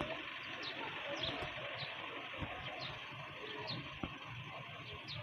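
A bird calling repeatedly, short falling chirps about every half second, over steady background noise, with a couple of faint knocks.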